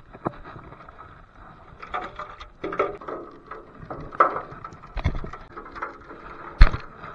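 Shallow seawater splashing and sloshing in irregular bursts as blue crabs are handled by hand, with scattered clicks and one sharp knock near the end.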